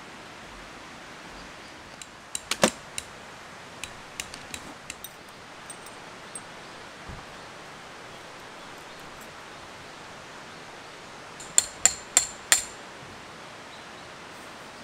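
Hammer driving a tent stake into the ground: a few sharp blows about two seconds in, some light taps, then four quick strikes close to the end, all over a steady rushing background noise.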